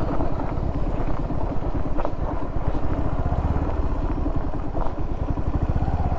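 Motorcycle engine running at low speed over a rough dirt track, a steady pulsing rumble, with a couple of sharp knocks from the bumpy ground about two and five seconds in.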